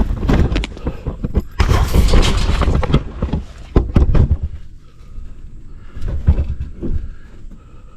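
Irregular thumps and knocks with rustling handling noise and heavy low rumble close on the microphone, as gear on a hunting tree stand is handled and fitted.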